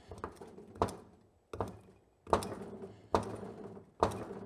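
Repeated tapping on a seized motorcycle brake master cylinder (1982 Honda GL1100 Gold Wing rear master cylinder) to drive the stuck, corroded inner parts out of the bore. There are about seven sharp knocks, roughly one every three-quarters of a second, each dying away quickly. Each tap moves the parts a little farther out.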